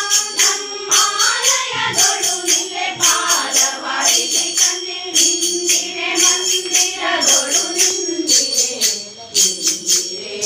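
A group of women singing a devotional song together, with jingling hand percussion keeping a steady beat.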